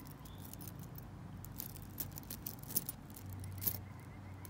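Metal costume jewelry clinking and jangling in scattered light clicks as chains and earrings are handled and sorted in a box. A low steady hum sits underneath and grows louder about three seconds in.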